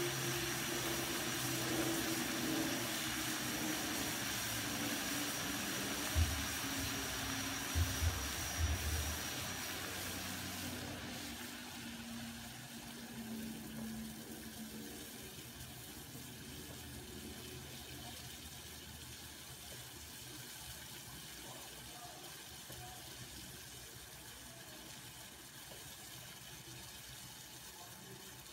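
Water with herbs boiling in a pan on a gas stove: a steady bubbling hiss that eases and grows quieter about a third of the way in as the boil subsides. A few low bumps come shortly before that.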